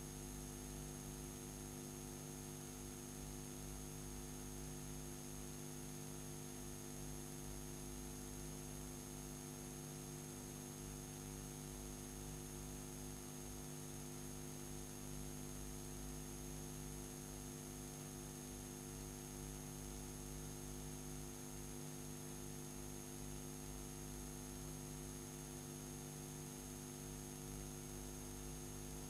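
Steady electrical mains hum with a buzz of low overtones, a thin high whine and faint hiss: the playback noise of a blank stretch of old videotape after the recording has ended.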